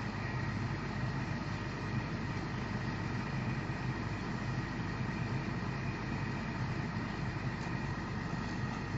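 Excavator's diesel engine running steadily, with a thin high whine held throughout.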